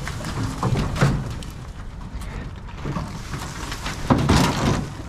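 A heavy scrapped HVAC unit is manhandled and flipped into a truck bed: irregular metal knocks, scrapes and creaks, with louder bangs about a second in and again around four seconds.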